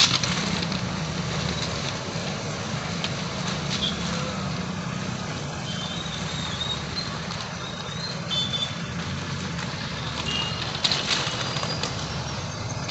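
Mixed road traffic of motorcycles, cars and an e-rickshaw crossing the tracks, engines running steadily, with a few short high beeps about halfway through.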